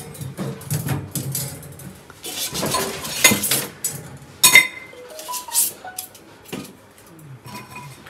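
Clinks and rattles of a microwave oven's stainless steel wire racks and metal accessories being handled and set down, with some rustling. A sharp clink about halfway through is the loudest.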